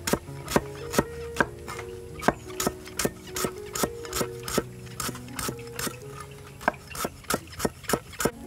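Knife chopping on a wooden cutting board, sharp knocks about three a second, over background music.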